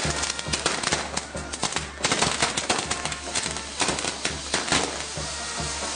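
Firework castle (castillo) going off: rapid crackling and popping from its spinning spark wheels and firecrackers, with a fresh burst of pops about two seconds in, thinning out near the end.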